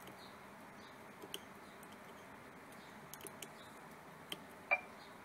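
Sharp clicks in the cab of a Scania K280 bus as the dashboard display's menu is stepped through: one single click, then a quick run of three, then two more, the last and loudest just before the end. Under them is a faint steady hiss.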